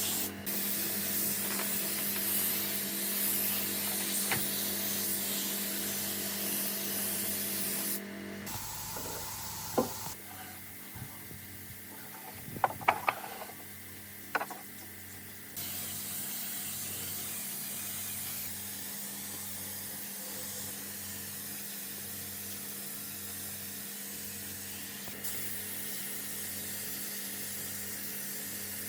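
Steady hissing workshop noise over a low hum, changing abruptly a few times. In a quieter stretch in the middle come several sharp clicks and knocks.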